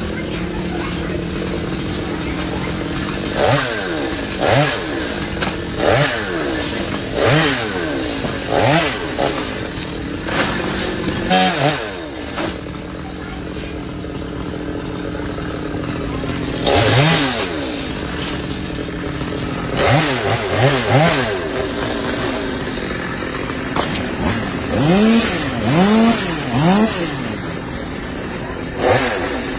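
Chainsaw engine running with its throttle revved again and again, each rev climbing and dropping back, about one a second in three runs with steady running between them.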